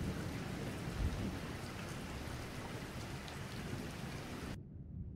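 Steady rain falling, with a brief low rumble about a second in. The rain cuts off suddenly near the end, leaving only a faint low hum.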